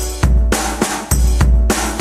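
Background music with a steady drum beat, about three hits a second, over a deep bass line.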